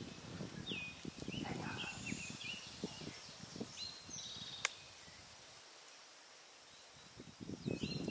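Intermittent rustling and crackling in dry leaves while several songbirds sing short trilled phrases, with one sharp click about four and a half seconds in.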